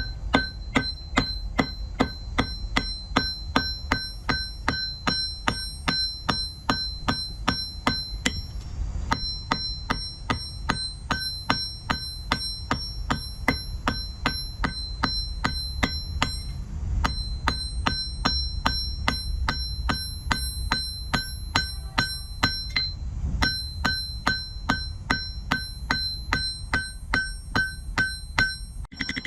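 Forging hammer striking hot iron on an anvil in quick, steady runs, each blow ringing with a bell-like metallic tone. The runs break off briefly three times. A low rumble continues underneath.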